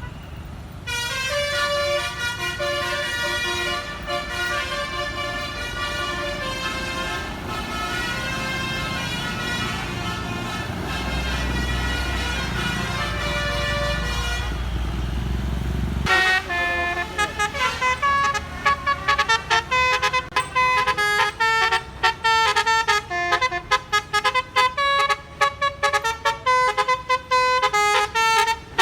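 A bus's basuri musical horn playing a tune: long held notes first, then a fast run of short staccato notes from about halfway through. A low engine rumble swells just before the fast part.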